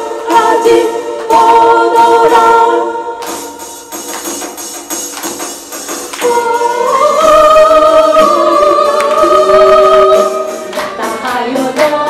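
Three women singing a song together into microphones, amplified with musical accompaniment. The singing drops back for a few seconds about three seconds in, then returns with long held notes.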